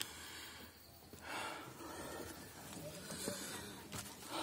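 A person breathing hard from the effort of climbing steep stone steps, with loud, hissing breaths close to the microphone about a second and a half in and again about three seconds in.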